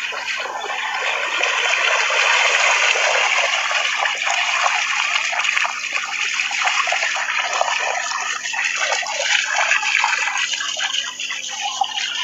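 Dogs splashing through shallow seawater: a continuous run of small, rapid splashes and sloshing.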